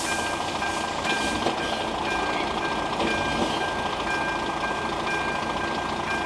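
A level crossing's electronic warning bell chiming in a steady, evenly repeating pattern. It signals that the crossing is active and a train is approaching.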